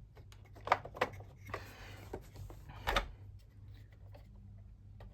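Scattered clicks and knocks of small parts being handled as leads are fitted onto the terminals of a Numatic Charles vacuum cleaner's motor. There are sharper knocks just under a second in, at about a second and near three seconds in, and a short scraping rustle around two seconds.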